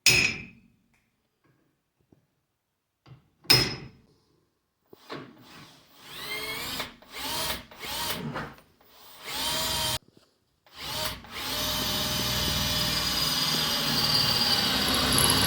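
Electric drill boring a hole through a steel pipe tee for an oil sight glass, first in short trigger bursts with the pitch rising each time the motor spins up, then running steadily through the metal for the last few seconds. Two sharp knocks come before the drilling starts.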